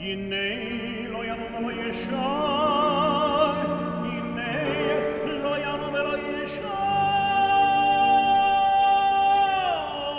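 A cantor (hazzan) singing a liturgical melody in a full, operatic style with wide vibrato, ending on a long held note that slides down near the end.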